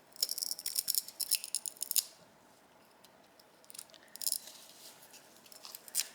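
Small hand tools clicking and scraping against carburetor parts while the stuck air cut valve and its torn diaphragm are picked off. There is a busy clatter for about two seconds, a second short spell around four seconds in, and one sharp click near the end.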